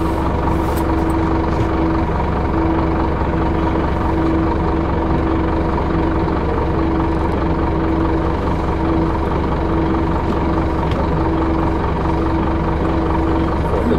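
City bus engine idling, heard from inside the passenger cabin: a steady low rumble with a hum that breaks off briefly at regular intervals.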